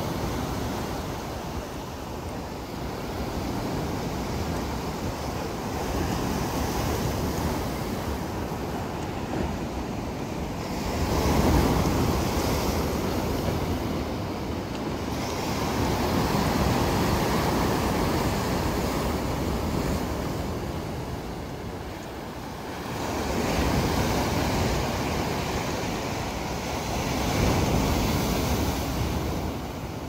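Pacific Ocean surf breaking and washing over a rocky shore. The rush of water rises and falls in several surges, loudest about a third of the way in.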